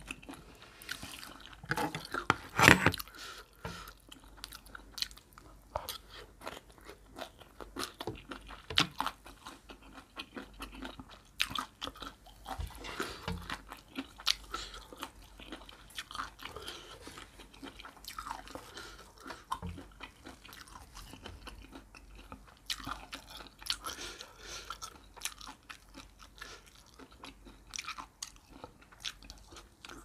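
Close-miked chewing and crunching of a spicy Thai horseshoe crab egg salad, in many short crisp bites, the loudest crunch about two and a half seconds in.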